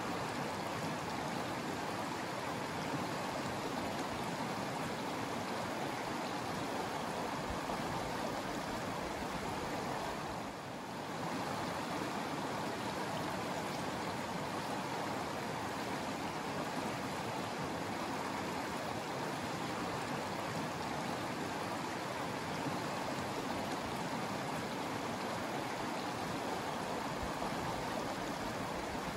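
Shallow mountain river rushing steadily over rocks, dipping briefly about ten seconds in.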